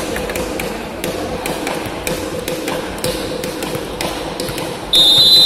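Volleyball rally on an indoor court: scattered knocks of the ball being played and players' feet on the floor. Near the end a referee's whistle blows once, steady and loud for about a second and a half, stopping play for the point.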